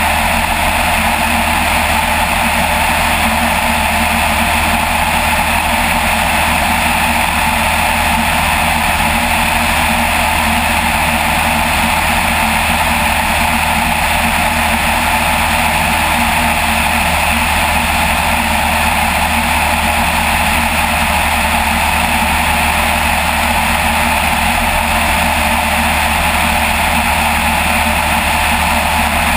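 Small aircraft's engine running steadily in flight: a constant loud drone with a low hum, unchanging in pitch and level.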